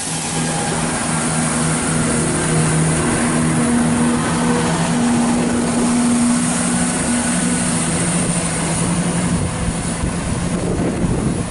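Greater Anglia Class 170 Turbostar diesel multiple unit running through the station: its underfloor diesel engines give a low steady drone over wheel and rail noise, and the drone shifts in pitch partway through.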